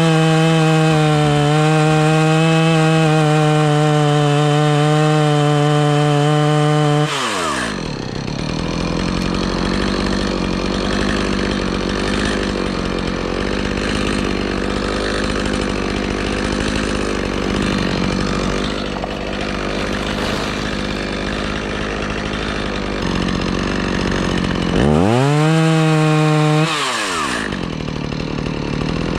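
Two-stroke chainsaw running at high revs, then dropping sharply to a low, rough idle about seven seconds in. Near the end it revs up briefly once and falls back to idle.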